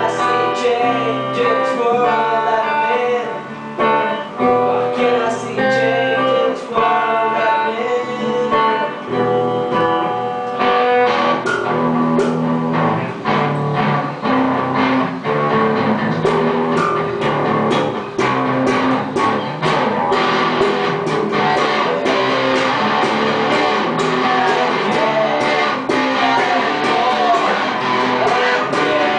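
Electric guitars playing an instrumental passage: a picked melodic line of clear single notes over chords, turning about ten seconds in into a denser section of fast, sharp strummed strokes.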